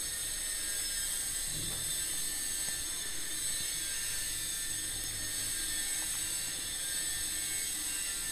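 Metal spoon scraping and stirring dry flour and semolina in a stainless steel bowl, a steady scraping rustle.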